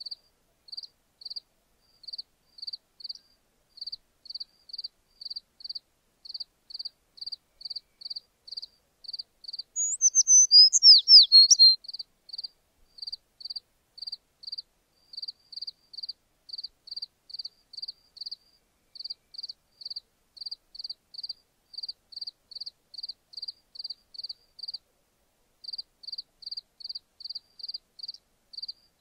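Insects chirping in a steady, even rhythm, about two to three high chirps a second. About ten seconds in, a louder run of fast chirps sweeps downward in pitch for about two seconds.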